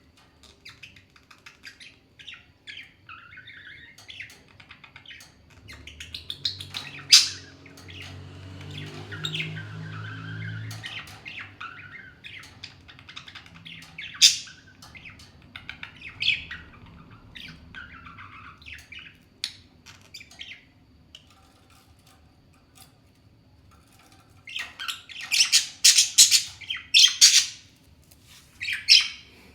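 Two pet parrots squabbling: chatter and chirps with a few loud, harsh squawks, then a quick run of loud squawks near the end.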